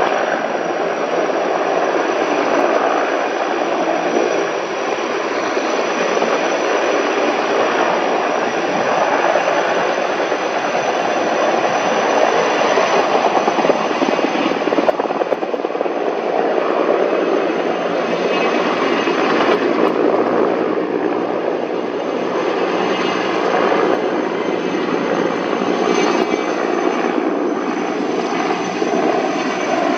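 Sikorsky S-64 Skycrane heavy-lift helicopter hovering low and then lifting away, its rotors and twin turboshaft engines running steadily with a thin high whine over the dense rotor noise.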